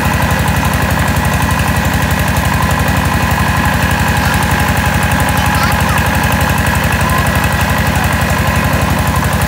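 Mobile rice huller running steadily while milling paddy: its engine gives rapid, even thumps under a steady high whine.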